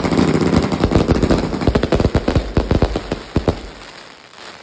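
Rubro Techno V firework cake firing a rapid, dense run of loud bangs. The bangs thin out to scattered reports about three seconds in and die away near the end.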